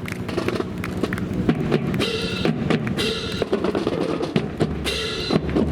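Drums playing a beat with bass drum and snare, joined by short held musical notes about two seconds in, again at three seconds and near the end.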